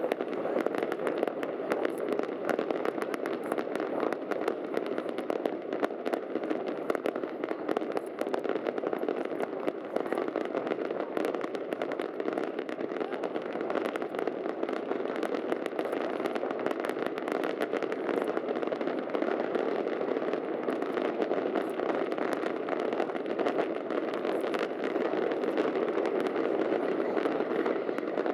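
Large fireworks display: a dense, continuous crackling and popping, many rapid reports blending into one steady rattle with no pauses.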